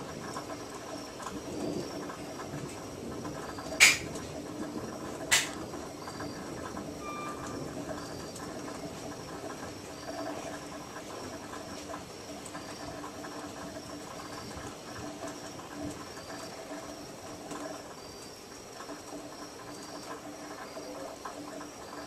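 Night chorus of frogs and insects calling steadily. Two sharp clicks, about a second and a half apart, cut through it about four seconds in.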